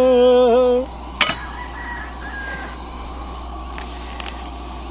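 A rooster crowing: a rising call that settles into a long held note and ends under a second in. A single sharp click follows a moment later, then a steady low hiss.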